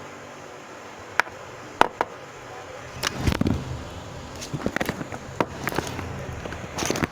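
Small clicks and clatter of hand tools and parts being handled while resistors are fitted on a CRT TV's circuit board: three sharp clicks in the first two seconds, then from about three seconds in a low rumble of handling with a quick run of clicks.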